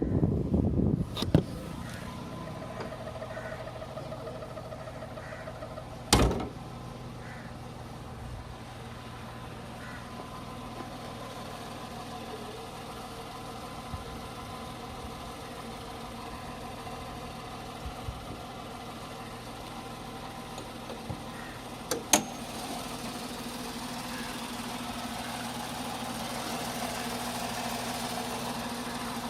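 Tata Tiago engine idling with a steady hum and thin whining tones: the weird noise from under the bonnet. A few sharp knocks break in, loudest about six seconds in and again about twenty-two seconds in, after which the hum grows a little louder.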